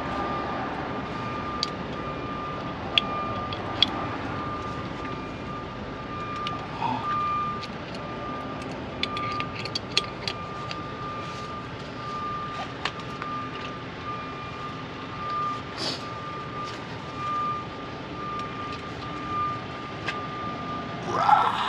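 Electronic warning beeper sounding a steady, evenly repeated beep at about two a second, with scattered sharp clicks and knocks and a louder clatter near the end.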